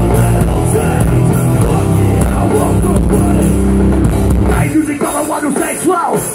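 A hardcore band playing live at full volume, with distorted guitars, bass and drums; about four and a half seconds in the heavy low end drops away and short shouted voices are left.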